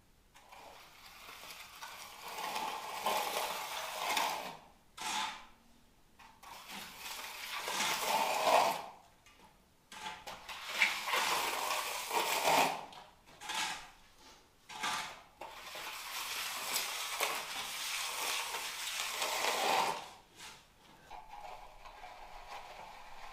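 A long-handled float scraping across a freshly poured wet concrete floor as it is pushed and pulled to smooth the surface. It comes as several scraping strokes of one to four seconds each with short pauses between them, the longest near the middle, and goes much quieter a few seconds before the end.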